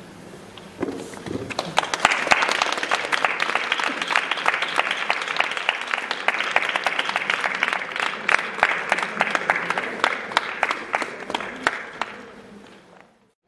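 Audience applauding: the clapping starts about a second in, builds quickly to a full, steady applause, then dies away near the end.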